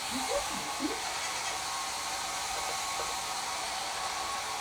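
Hair dryer running steadily, blow-drying newborn goat kids, with a few faint short calls in the first second.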